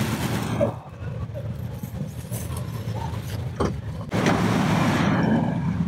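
Steady low rumble of motor vehicles, with a short knock a little over halfway through and a louder rush of noise toward the end.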